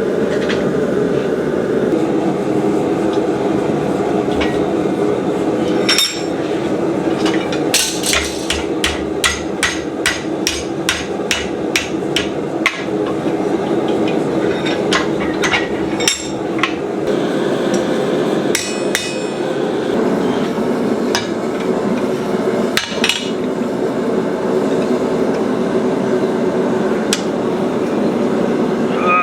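Hammer blows on steel: a quick run of about three strikes a second for some four seconds, with single blows before and after, over a steady rushing noise.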